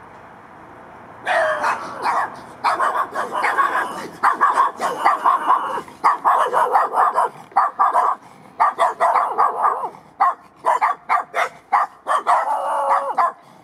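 A small dog barking rapidly and repeatedly in quick runs of sharp barks, starting about a second in.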